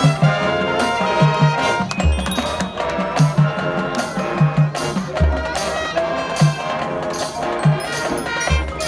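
High school marching band playing: brass carrying the tune over bass drum hits and percussion strikes.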